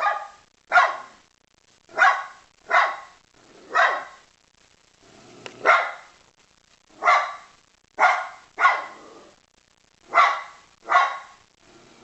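A dog barking repeatedly: about eleven single barks, most roughly a second apart, with a longer pause now and then.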